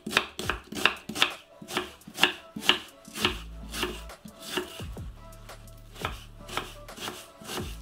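Kitchen knife chopping an onion on a wooden cutting board, with steady, evenly spaced knife strokes about two a second.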